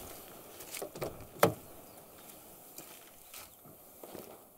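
A car door being opened, with one sharp click of the handle and latch about a second and a half in. Smaller clicks and rustling follow as someone climbs into the driver's seat.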